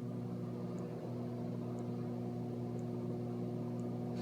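Microwave oven running: a steady electric hum, with a faint tick about once a second.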